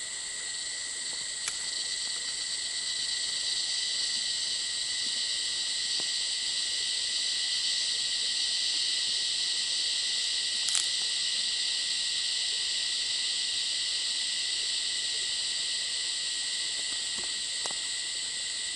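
A dense chorus of insects: steady, high-pitched buzzing and hissing that swells a little over the first few seconds. A brief click about eleven seconds in.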